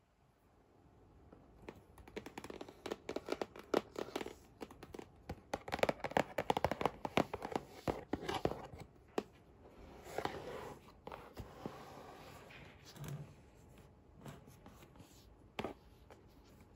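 Fingertips tapping and scratching quickly on a cardboard toy box. The taps come thick and fast for several seconds, then thin out into sparser handling rustles and a few sharp clicks as the box is held and turned.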